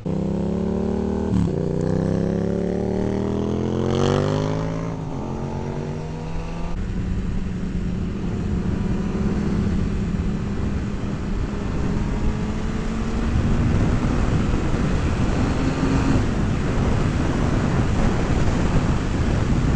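Kawasaki sport bike engine accelerating hard. It revs up through the gears with quick breaks at each upshift, then settles into a steady high-speed run with heavy wind noise.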